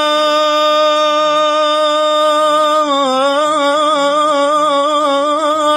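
A single voice holding one long sung note in an Iraqi song, steady for about half its length, then wavering with vibrato and small melodic turns.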